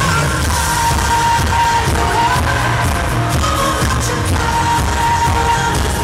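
Live pop music: a female lead vocal holding long sung notes over a full band with drums, loud and dense.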